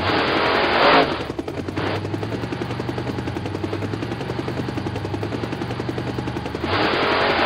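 Cartoon sound effects: a monster truck engine revving up in the first second, then the rapid, even chop of helicopter rotors over a steady low hum, then the engine revving again near the end.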